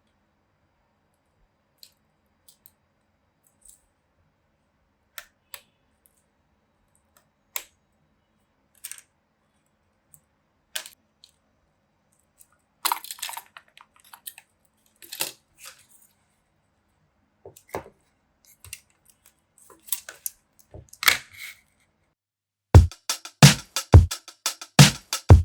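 Sparse small clicks and taps, one every second or two, from small parts and tools being handled. About three seconds before the end, music with a heavy, evenly spaced drum beat comes in and is the loudest thing.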